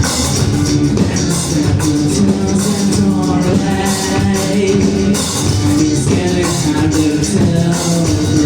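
Rock band playing live: electric guitars and drums with a steady beat.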